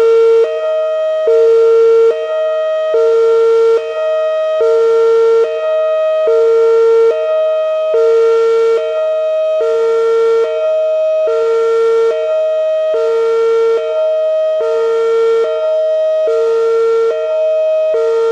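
Whelen WPS-2809 electronic outdoor warning siren sounding its Hi-Lo signal during a routine test: two steady pitches alternate evenly, each held just under a second.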